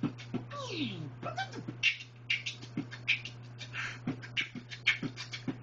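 A man beatboxing: quick, sharp mouth clicks and hissing bursts in a rhythm, with voiced sounds that slide down in pitch, over a steady low hum.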